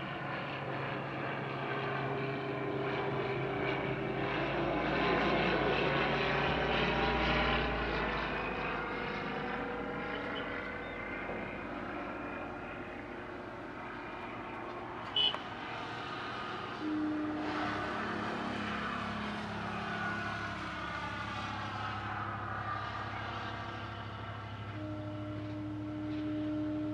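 Single-engine propeller light aircraft flying low on approach, its engine and propeller drone loudest about five to eight seconds in as it passes, the pitch sliding down. A brief sharp click about fifteen seconds in.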